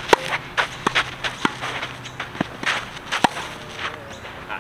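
Tennis ball volleyed back and forth between two rackets: about five sharp pings of ball on strings, half a second to a second apart, with shoes scuffing on a clay court between the hits.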